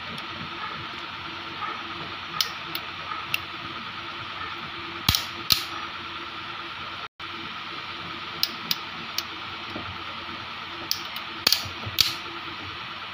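Sharp metallic clicks, several in close pairs, from a click-type torque wrench tightening cylinder head bolts, each click the sign that the set torque has been reached. A steady faint hum runs underneath.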